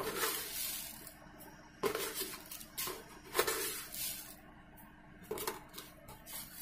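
Steel spoon clinking against steel kitchen containers while sugar is scooped, with about eight irregular light clinks, each with a short ring.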